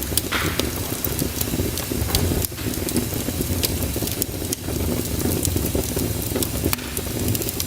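Wood fire burning in a fireplace: steady low flame noise with many sharp crackles and pops.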